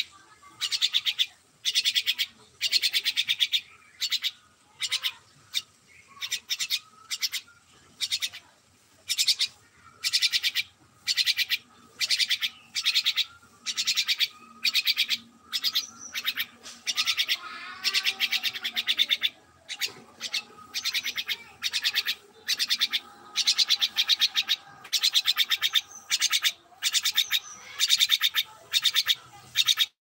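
A myna giving short, harsh, buzzy calls over and over, about one or two a second, with one longer wavering call just past the middle.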